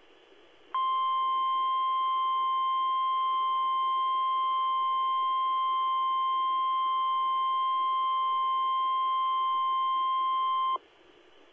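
NOAA Weather Radio warning alarm tone: a single steady high beep about ten seconds long. It starts about a second in and cuts off sharply, heard over a weather radio receiver's faint hiss. It signals that a warning message is about to be broadcast.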